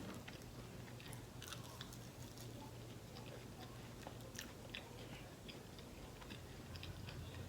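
A person chewing food close to the microphone: faint, irregular wet clicks of mouth and teeth.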